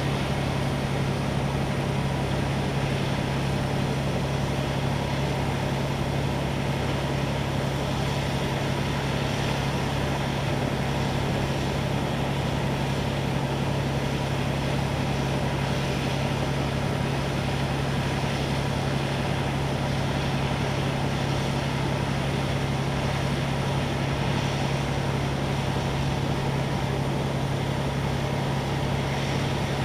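Steady drone of firefighting pump engines running at constant speed to feed the hoses, with the hiss of water streams spraying.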